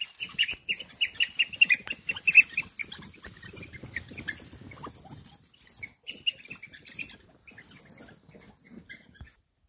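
African wild dogs, pups and adults, twittering: rapid, high-pitched squeaky chirps, the excited social calls of a pack at play. The chirping is densest in the first half and thins out toward the end.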